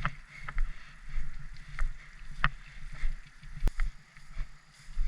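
Footsteps of a person walking in an even rhythm, about three steps every two seconds, each a low thud with a light rattle of gear. A single sharp click comes about two-thirds of the way through.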